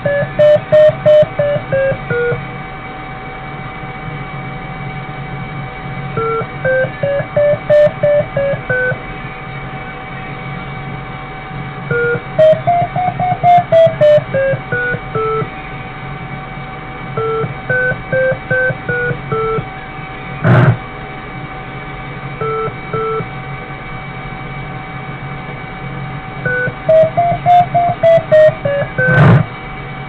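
Audio variometer beeping in short pulses. The pitch steps up and then back down over a couple of seconds, in several spells a few seconds apart, tracking the glider's climb and sink as it works lift. A steady hum runs beneath, and there are two sharp clicks in the second half.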